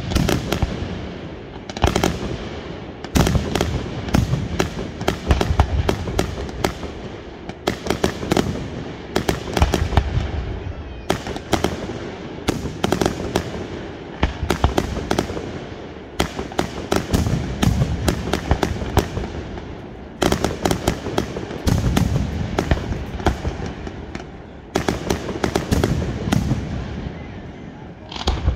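Aerial fireworks display: volleys of shell bursts, clusters of sharp bangs every second or two, with crackling between them.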